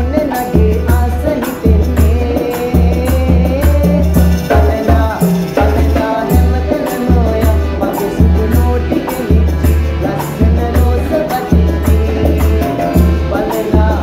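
Sri Lankan calypso-style band music: a piano accordion and hand drums over a steady bass beat, with men singing together.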